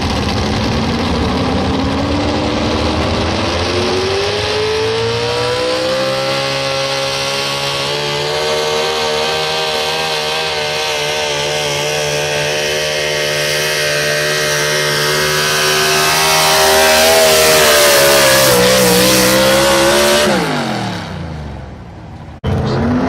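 Super stock 4x4 pulling truck's engine at full throttle during a pull. It climbs in pitch over the first several seconds, then holds at high revs and grows louder. Near the end it winds down as the throttle comes off, and just before the end it cuts off abruptly into another engine running.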